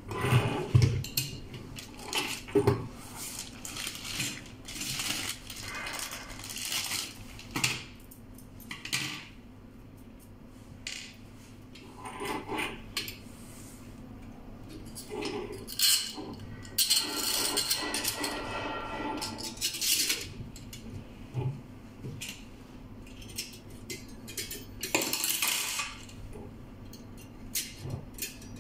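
Metal parts clinking, knocking and scraping as a fan, wire fan guard and long mounting screws are handled against the aluminium finned body of an air-cooled diffusion pump. The clinks come off and on, with a longer rattling, scraping stretch about two-thirds of the way through.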